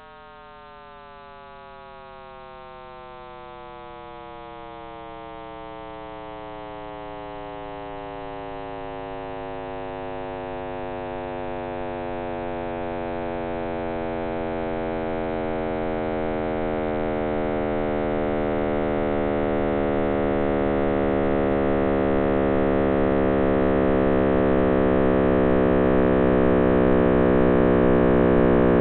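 Computer sonification of the Big Bang: the early universe's sound waves, shifted up in frequency about 100 septillion times so they can be heard, play as a deep, many-toned hum. Its pitch falls slowly as the expanding universe stretches the waves, while it grows steadily louder.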